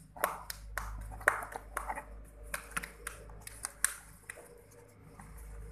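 Irregular sharp clicks and taps of plastic and metal as hands handle the opened blender's motor and plastic housing, over a low steady hum.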